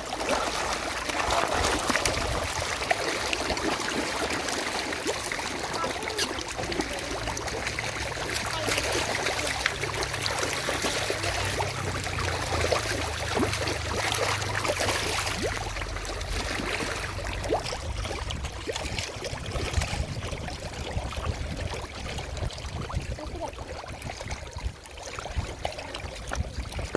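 Water splashing and trickling, with many small crackling splashes, plus a low hum from about seven to twenty seconds in.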